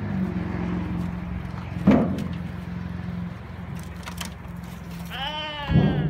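A goat bleating once near the end, one long call, over a steady low hum, with a short sharp sound about two seconds in.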